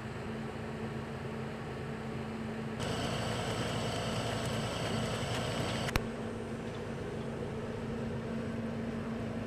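Machinery running steadily with a constant low hum. A louder, hissier stretch from about three seconds in ends in a sharp click about six seconds in.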